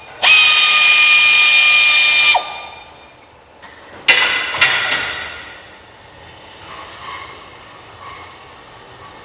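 Power drill-driver runs at steady speed for about two seconds, driving a clutch pressure-plate bolt into the flywheel, and its pitch drops as it stops. About four seconds in come three sharp metallic clanks that ring briefly.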